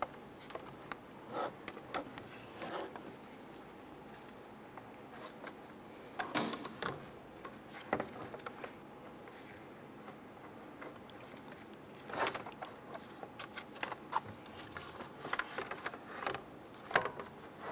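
Plastic radiator cooling fan shroud being lowered and worked into its tabs on the radiator: scattered light clicks, scrapes and knocks of plastic, with a few louder bumps.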